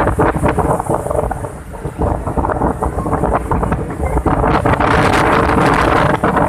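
Gusting cyclone wind buffeting the phone microphone over the constant roar of storm surf breaking and washing across the flooded shore.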